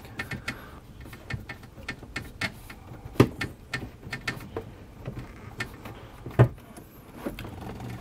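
Scattered small plastic clicks and taps as a hand twists a plastic twist-on water supply line nut off the underside of an RV faucet, with two louder knocks about three and six seconds in, over a low steady hum.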